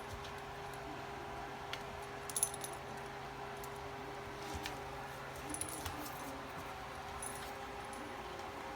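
A few faint, scattered light metallic jingles and clicks, with a steady low hum underneath.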